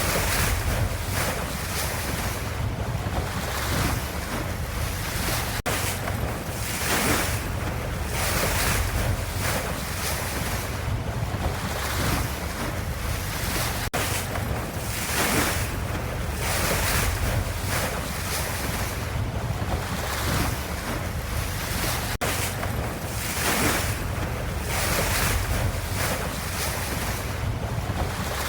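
Ocean waves washing in soft, repeating surges, about one every two seconds, over a steady low rumble.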